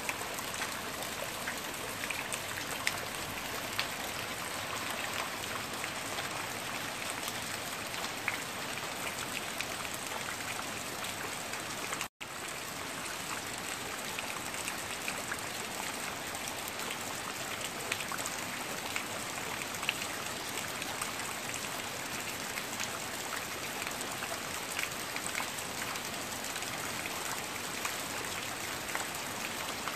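Steady rain falling on trees and garden foliage, an even hiss scattered with the ticks of individual drops. The sound cuts out for an instant about twelve seconds in.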